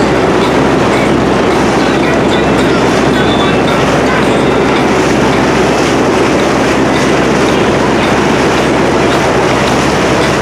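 Steady loud rumble and rush of a motorboat running across choppy lake water.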